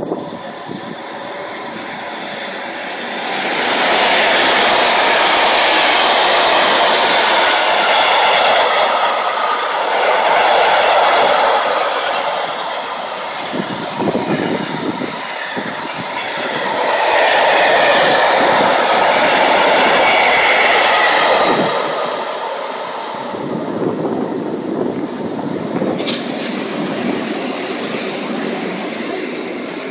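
A freight train of bulk hopper wagons passing through at speed: a heavy rush of wheels on the rails that builds over the first few seconds, is loudest in two long stretches, and eases to a steadier rattle for the last third. Scattered knocks come from the wheels, and there is a brief high wheel squeal near the end.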